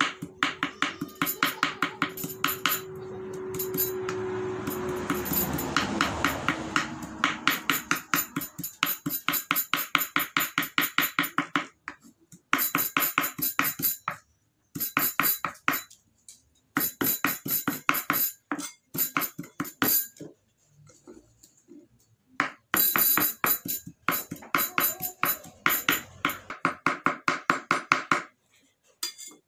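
Kitchen knife chopping fresh green herbs on a cutting board: quick, even strokes at about five a second, in runs of several seconds with short pauses. A steady hum sounds under the first few seconds.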